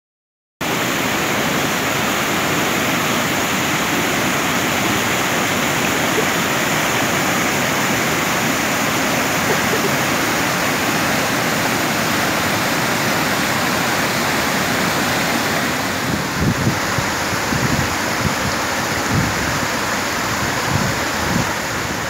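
Rushing water of a travertine cascade on the Krka river: a steady full rush of falling and splashing water that starts suddenly about half a second in. Uneven low buffeting joins it about two-thirds of the way through.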